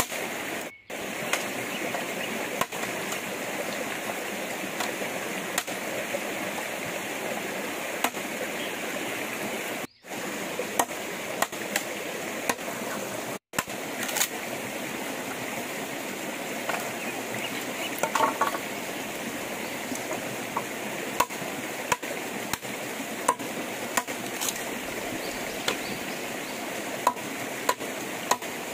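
Steady rushing noise like a nearby stream, with scattered sharp knocks of chopping on wood and bamboo, coming more often in the second half. The sound cuts out briefly three times.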